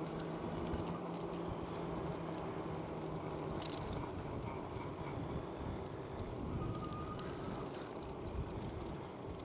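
Steady wind rushing over the microphone during a bicycle ride on an asphalt road, with a faint low hum in the first few seconds.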